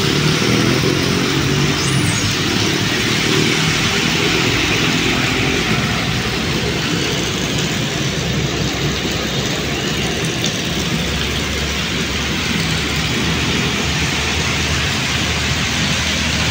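Steady rain falling on a wet road and dripping from an overhang, mixed with highway traffic: vehicle engines running and tyres on the wet surface, with a lower engine hum coming in about halfway through.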